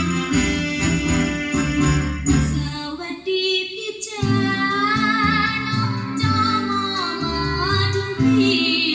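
Recorded song played back through an Adcom GFA-555 power amplifier and speakers: a guitar-led instrumental passage, then a woman's singing voice with vibrato entering about four seconds in.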